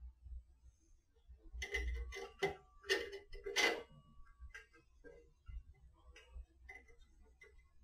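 Light metallic clicks and taps of a small Allen key and a metal mounting clamp being fitted and tightened on a stainless steel bar. The clicks come in a cluster, loudest between about two and four seconds in, then thin out to scattered small ticks.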